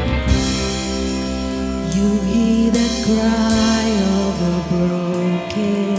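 Live worship band playing a slow song on electric guitars, drum kit and keyboard, with cymbal washes over long held notes.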